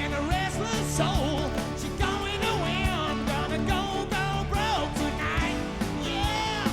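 A live band plays an instrumental passage of a rock-soul number, with drums, bass and chords under a bending, wavering lead melody line.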